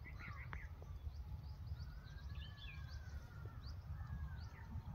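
Outdoor farmland ambience: several birds chirping in short, scattered calls over a low, steady rumble.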